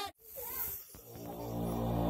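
The music and voices cut out at a scene change, leaving a moment of near quiet with a faint brief sound. Low, droning eerie background music then fades in from about a second in and grows louder.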